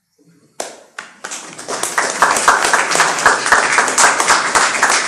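Audience applauding: the clapping starts about half a second in and quickly fills out into a dense, steady clatter of many hands.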